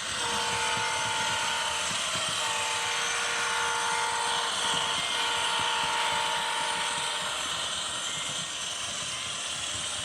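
Diesel locomotive horn sounding four blasts, long, short, long, long, over the steady rumble and hiss of a running locomotive.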